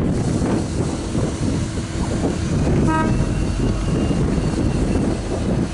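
V/Line N-class diesel-electric locomotive running beside the platform with a steady low rumble and drone. About three seconds in there is a brief toot of its horn.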